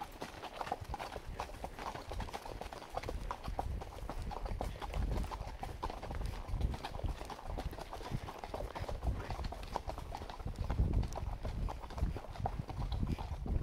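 Hoofbeats of a ridden horse on a packed dirt trail: a continuing, uneven clip-clop of footfalls.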